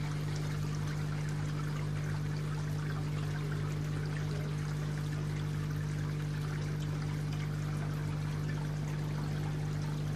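Water splashing and trickling steadily into a garden koi pond, with a steady low hum underneath.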